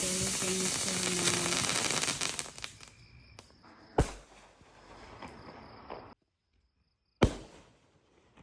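Fireworks: a dense crackling shower that fades out after about two seconds, then a sharp bang about four seconds in and a louder one near the end.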